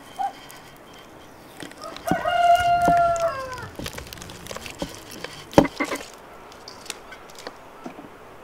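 A rooster crows once, about two seconds in: a long, held call that falls in pitch at its end. A few sharp knocks follow a few seconds later.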